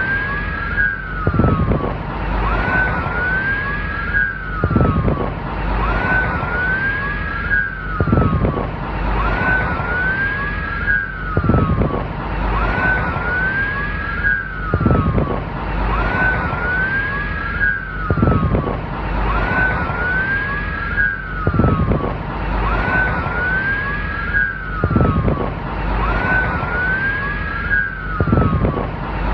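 Police car siren wailing, its tone rising and falling about once a second, with overlapping sweeps. The same few seconds repeat as a loop about every three seconds, each time with a low thump.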